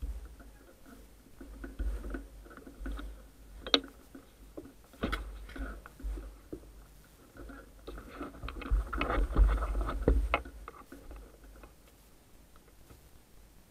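Wind buffeting the microphone in uneven gusts, heaviest in a long gust late on, with a few sharp clicks or knocks, one about four seconds in and one about five seconds in.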